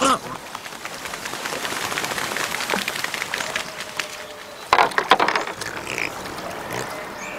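A cormorant being handled on a wet bamboo raft: crackling, dripping water noise, and a cluster of sharp rustling, clattering sounds about five seconds in.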